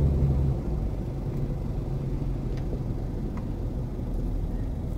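Low, steady rumble of a car's engine and road noise heard from inside the cabin while driving. The low engine note eases off about half a second in.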